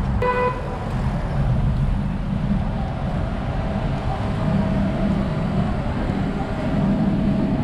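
City street traffic: a steady rumble of passing motor vehicles on a busy avenue.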